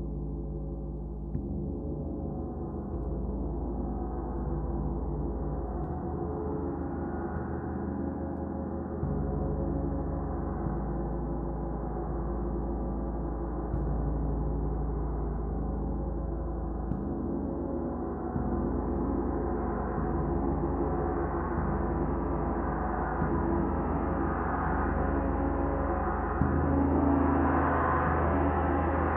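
32-inch Oetken Komet gong No 3 played with a soft mallet in repeated gentle strokes, its deep shimmering drone sustained throughout. The sound builds, growing louder and brighter toward the end.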